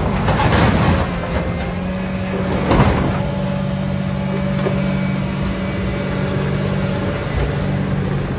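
Diesel engine of an SDLG LG968N heavy machine running steadily under load, with metal clanks near the start and again about three seconds in.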